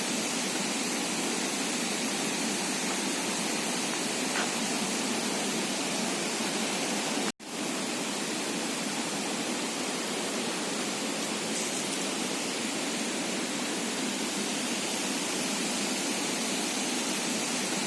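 Steady rush of falling water from a waterfall, an even roar with no breaks except one instant cut-out about seven seconds in.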